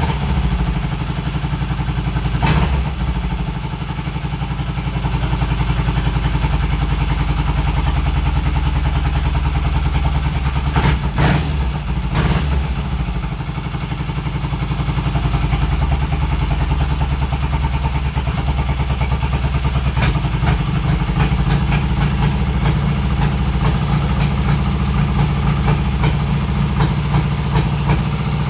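1972 Triumph Bonneville T120R's 650 cc parallel-twin engine running on its first cold start after a major mechanical restoration, choke on. There is a sharp crack about two seconds in and two more near the middle, and the beat grows stronger in the last third.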